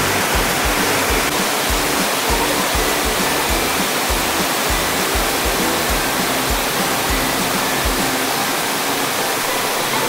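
Steady roar of Dhuandhar Falls as the Narmada river pours over marble rock, under background music with a steady low beat.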